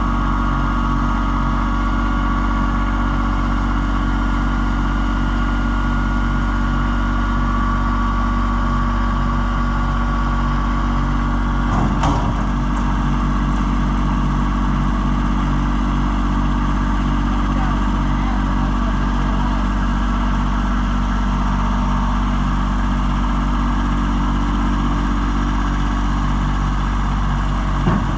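A vehicle engine idling steadily, with a single knock about twelve seconds in and another near the end.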